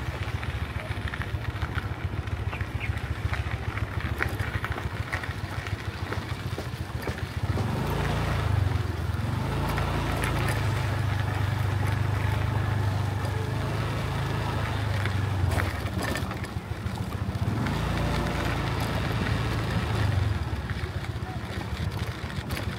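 Motorbike engines running along a narrow street: a steady low hum that swells and dips several times over general street noise.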